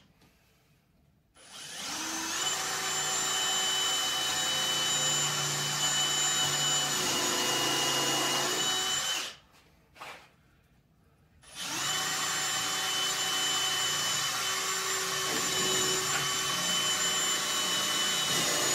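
Cordless drill running steadily, boring pilot holes in wood, in two long runs of about seven seconds each with a short pause between. The slow drilling is what makes the woodworker bet the bit is dull and due for replacement.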